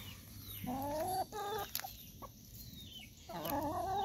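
Brown hens clucking while feeding: two drawn-out, wavering calls, one about a second in and another near the end, with a few short clicks between them.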